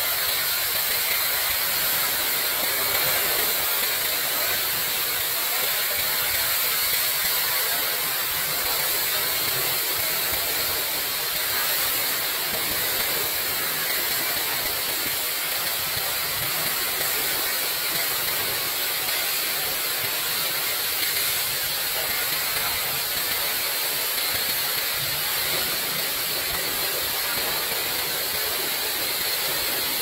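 Dundelbach waterfall: falling water rushing and splashing in one steady, unbroken hiss, heaviest in the high end.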